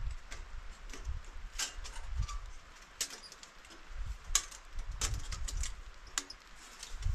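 Tent being pitched: nylon fabric rustling and flapping, with scattered sharp clicks and taps from poles and clips, over a low rumble.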